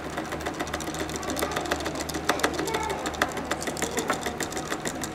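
A long metal bar spoon stirring ice cubes in a plastic cup: a quick, irregular clinking and rattling, several clicks a second, over a low steady hum.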